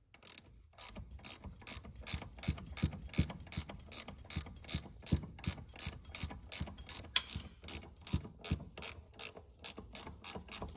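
Ratchet wrench clicking steadily, about four clicks a second, as it backs off a 15 mm nut holding the brake master cylinder to the Hydro-Boost booster.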